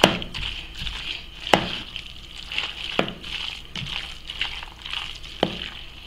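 Metal spoon stirring a thick, moist shredded-chicken pie filling in an aluminium pot, with soft wet mixing sounds and four sharp clacks as the spoon knocks against the pot.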